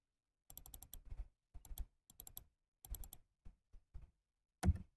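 Computer keyboard keys and mouse buttons clicking in short irregular runs, with the loudest clicks near the end.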